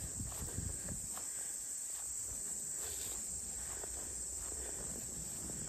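Insects chirring steadily in a high, continuous buzz, with soft footsteps on grass underneath.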